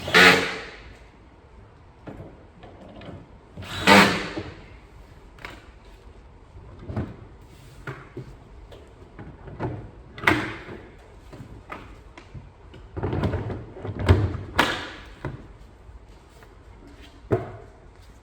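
Hard clunks and knocks as Milwaukee Packout toolboxes are set onto the bulkhead racking and fitted in place. There are about six of them, a few seconds apart, with two close together about three-quarters of the way through.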